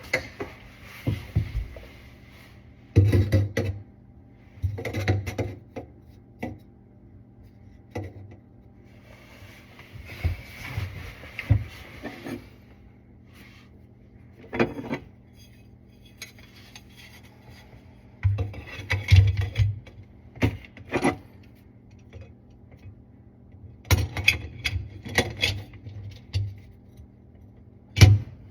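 Irregular knocks, clinks and rubbing as garbage disposal parts and plumbing fittings are handled and fitted together, with a stretch of scraping about ten seconds in.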